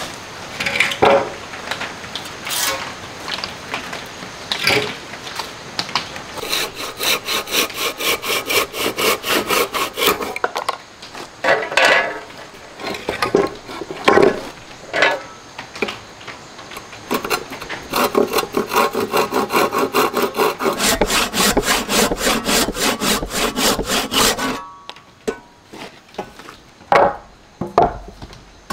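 Hand saw cutting hardwood boards in quick, even strokes, in two long runs, with sharp wooden knocks in between as pieces are handled and fitted.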